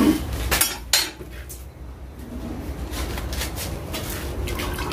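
Clatter of kitchen utensils: a knife and a plastic strainer knocking against an aluminium pot and a bench, two sharp knocks in the first second and a few lighter ones later.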